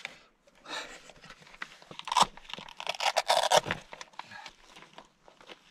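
Gear being handled: rustling, scraping and clicking as a charging cable is pulled out and a folding solar panel is set out on the ground, loudest around two seconds in and again just after three seconds.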